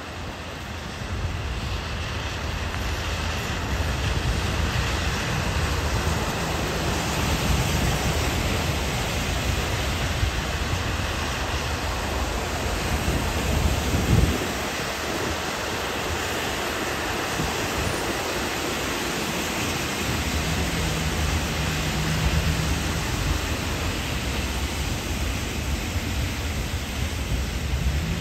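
Rainy city street traffic: cars driving past on wet pavement with a steady hiss of tyres and spray and a low engine rumble, with a brief louder swell about halfway through as a vehicle passes close.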